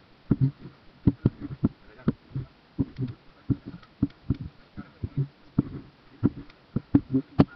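Irregular dull knocks and thumps, about two to four a second, with no steady rhythm.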